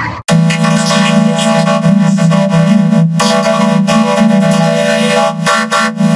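Electronically processed audio rendered as a dense, steady, buzzing synthesizer chord by a vocoder-type effect. It starts abruptly just after the opening and drops out briefly a little past the three-second mark.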